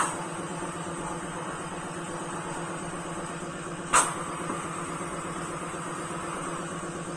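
Pneumatic glove-turning machine humming steadily, with a sharp clack about four seconds in and a fainter one at the very start.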